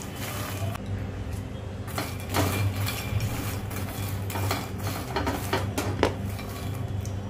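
Puffed lotus seeds (makhana) shifting and knocking against a stainless steel pan as a silicone spatula stirs them, in irregular clicks and scrapes over a steady low hum.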